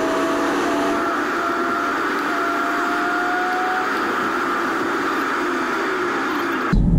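Steady hiss of road and wind noise from a moving car, with a faint whine that rises slightly in pitch over the first few seconds. Near the end it switches suddenly to a louder, deeper cabin rumble.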